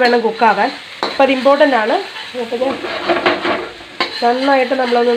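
Finely chopped aromatics sizzling in hot oil in an iron kadai while a metal spatula stirs and scrapes them around the pan, the scraping coming in repeated wavering strokes.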